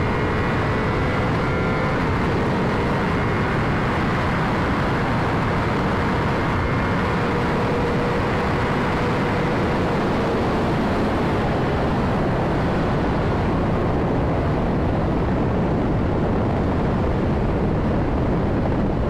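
Motorcycle riding at steady speed: a constant rush of wind and road noise over the 2009 Honda CBR600RR's inline-four engine note. The engine holds a steady pitch in the first half and sinks under the wind after about ten seconds.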